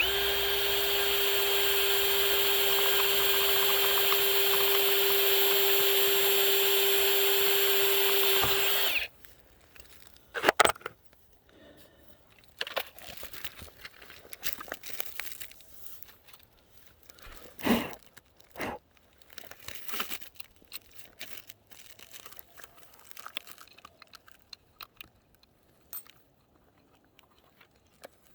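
Electric drill running at a steady whine for about nine seconds while drilling a larger hole in a rail joint, then stopping abruptly. Scattered light clicks and knocks of handling follow.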